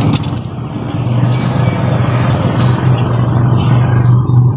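Steady mechanical running noise like an engine, loud and continuous, with a couple of light metal clinks near the start and near the end.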